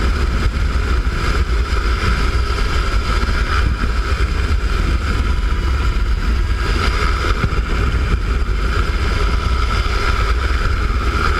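Helicopter hovering: steady, loud rotor and turbine noise with a constant whine and a deep rumble, heard from inside the cabin through the open door with some wind on the microphone.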